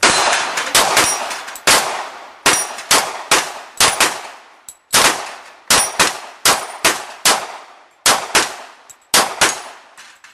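A rapid string of about two dozen gunshots with echoing tails and a short pause about four seconds in, with steel plates ringing as they are hit.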